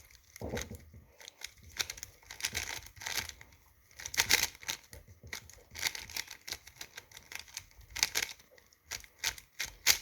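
Tornado V3 speed cube being turned fast during a solve: its plastic layers clack and click in irregular flurries of quick turns, with short pauses between them.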